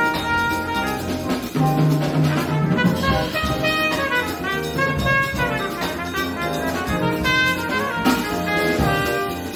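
Small jazz band playing, with the trumpet leading the melody over piano, electric bass guitar and drum kit, and two alto saxophones.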